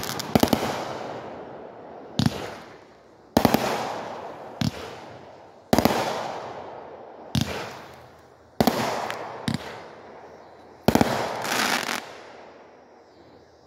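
Consumer aerial fireworks firing shot after shot: pairs of sharp bangs, a lighter one then a louder one about a second later, repeating every two and a half to three seconds, each with a fading tail. The last bang comes about eleven seconds in and the sound then dies away.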